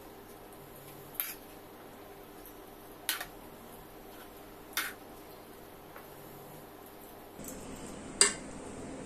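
Metal spoon clinking against the side of a metal kadhai while chicken is mixed with a thick masala: four separate clinks, the last one, near the end, the loudest.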